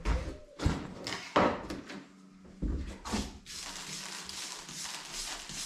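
A few knocks and bumps, then from about three and a half seconds in a steady scratchy brushing: a hand brush worked over freshly pointed lime mortar on a stone wall, brushing back the joints as the mortar firms up.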